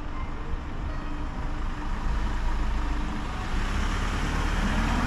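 Sapporo Municipal Subway Tōhō Line train running through the station on its rubber tyres, a rumble that grows louder about two seconds in.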